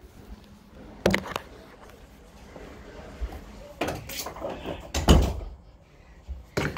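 A series of separate knocks and bumps of handling: the phone being set down, then objects being moved about. The loudest thump comes about five seconds in.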